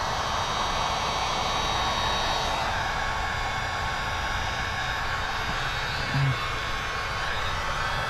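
Wagner heat gun running: a steady rush of blown air with a high motor whine, heating paint protection film to seal it down. A short low hum breaks in about six seconds in.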